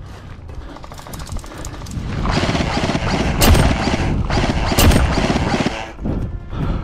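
Movement noise from a player on foot with an airsoft rifle: footsteps, kit rattle and wind on the head-mounted camera's microphone, getting louder about two seconds in. A short run of rapid ticks comes shortly after a second in.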